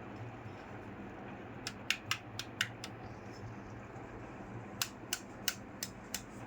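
Light clicks and taps of small toy kitchen pieces being handled, in two quick runs of about five or six clicks each, over a steady low hum.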